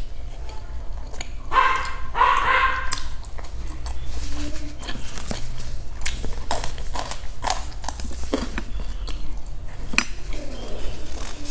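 Close-up eating sounds: biting into and chewing crisp pan-fried flatbread, with many short crunchy clicks. About two seconds in, a loud high-pitched whining cry in two parts lasts a little over a second.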